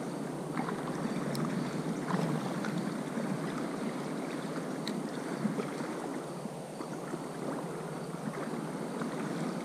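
Steady rush of shallow river water, with a few faint clicks.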